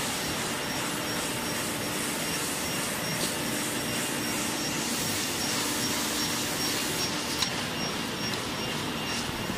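Pocket tissue packing machinery running steadily, an even mechanical whir with a faint high tone through it.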